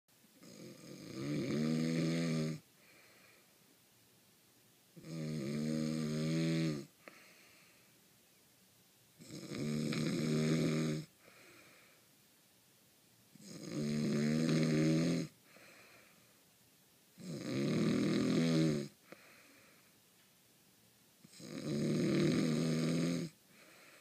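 A sleeping man snoring: six long, droning, pitched snores about four seconds apart, each lasting about two seconds, with a faint breath between them.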